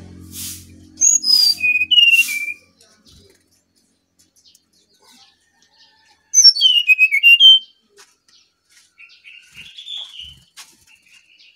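Brown-chested jungle flycatcher singing: two phrases of clear whistled notes stepping down in pitch, about a second in and again about six seconds in, with softer twittering near the end.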